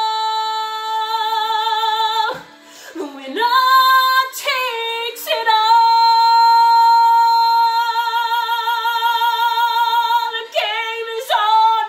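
A woman singing in a strong voice, holding long notes with vibrato. The first held note breaks off about two seconds in, a second is held for about four seconds in the middle, and shorter sung phrases come between them and near the end.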